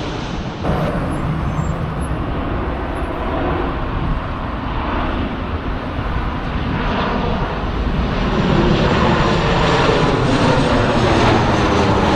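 Twin-engine jet airliner flying overhead: steady jet engine noise, growing a little louder in the last few seconds.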